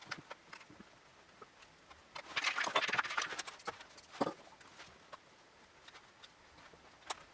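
Workshop handling sounds: scattered clicks and light knocks of tools and hardware, with a short burst of rattling about two seconds in and a sharper knock about four seconds in.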